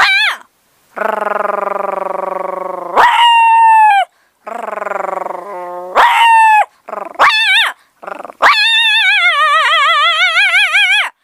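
A woman imitating a puppy with her voice. Rough low growls alternate with short high yelps that drop in pitch, and the sequence ends in one long, wavering high whine.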